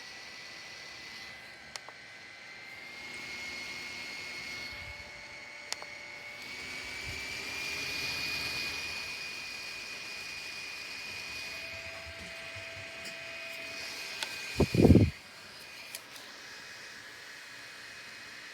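Small USB desk fan running: a thin, high motor whine over a rush of air, rising slightly in pitch a couple of times as the speed is turned up. About 15 seconds in there is a loud knock, the loudest sound here, and the whine falls away.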